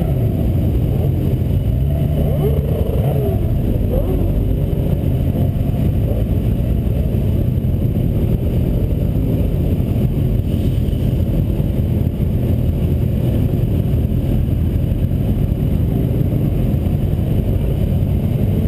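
Motorcycle engine running at riding speed, heard from a camera mounted on the bike, with the steady rumble and wind buffeting of a moving ride; other motorcycles in the group mix in.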